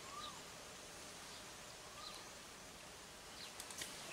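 Faint outdoor ambience: a steady soft hiss of breeze, with a bird giving a short rising-and-falling whistle twice, about two seconds apart, and a few faint high chirps.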